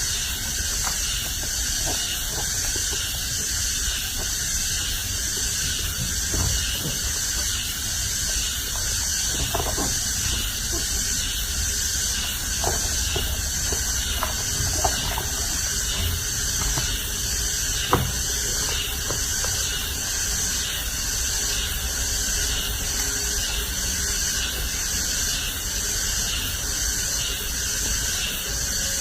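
A steady hiss with a faint, regular pulsing in its upper range, broken by a few soft clicks and knocks, the sharpest about eighteen seconds in.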